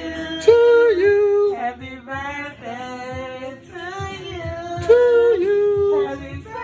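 A woman's voice singing an unaccompanied melody, the same phrase starting twice.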